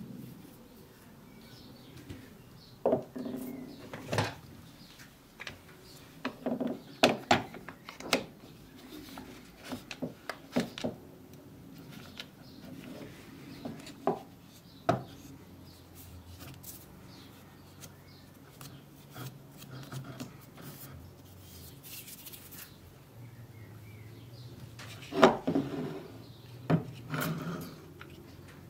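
Irwin trigger-style bar clamps and a wooden hand plane being handled on a wooden workbench: scattered knocks, clicks and rubbing as the clamps are positioned and ratcheted tight on the plane body, with the loudest cluster of knocks near the end.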